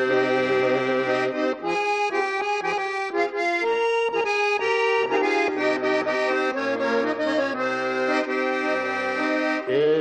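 Instrumental break between verses of a Nogai folk song: an accordion plays a melody over sustained chords, with the notes changing every half second or so.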